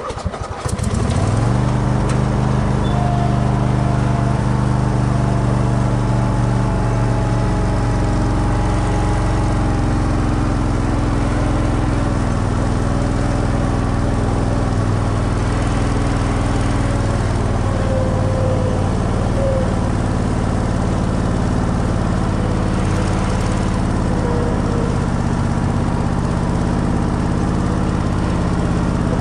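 Husqvarna zero-turn lawn mower's engine coming up to speed in the first second, then running steadily as the mower drives across the lawn.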